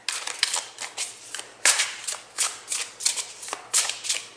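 A tarot deck being shuffled overhand by hand: packets of cards slid off and dropped back onto the deck, a string of short swishes about three a second.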